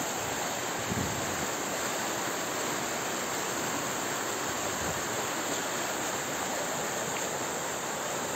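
Steady rush of fast-flowing water churning white through a concrete lake outlet channel.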